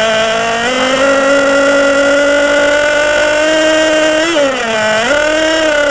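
Freshly rebuilt OPS .21 (3.5 cc) two-stroke nitro marine engine running on a test stand at high, steady revs. The pitch rises a little under a second in, then sags briefly and recovers about four and a half seconds in.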